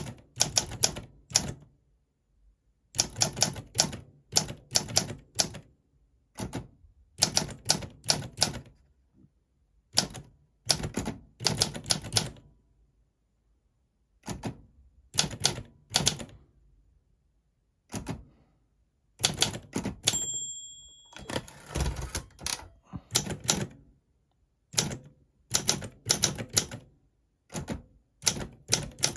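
Olympia SM4 manual typewriter being typed on, the key strikes coming in quick runs broken by short pauses. About two-thirds of the way in the margin bell rings once, and the carriage is then pushed back for a new line before typing resumes.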